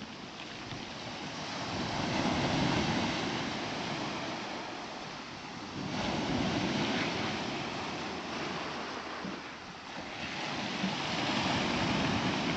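Sea waves washing onto the shore, three surges that swell and ebb every few seconds.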